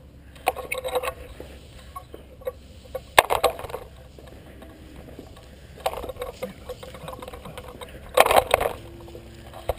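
Rustling and scraping of a person crawling prone over dry sand and leaves, in four short bursts as the body and gear shift forward.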